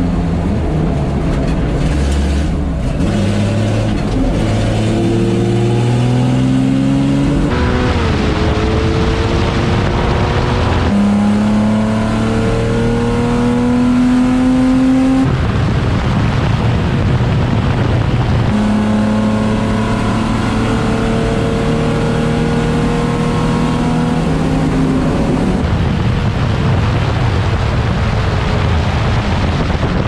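Racing car engine heard from onboard at full throttle. The engine note climbs steadily in several long pulls and breaks off abruptly every few seconds.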